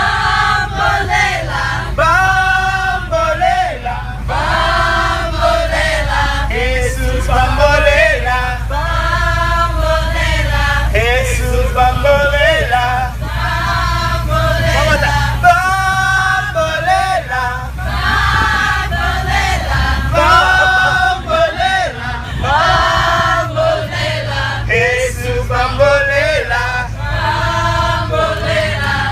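A group of men and women singing together aboard a moving bus, with the bus engine's steady low rumble underneath.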